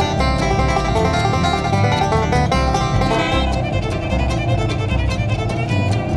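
Instrumental bluegrass-style music led by fiddle, with plucked strings and a moving bass line.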